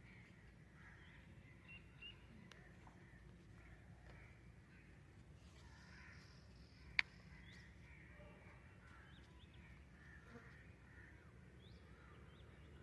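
Faint crows cawing over a quiet countryside hush, with a few small bird chirps. A single sharp click about seven seconds in.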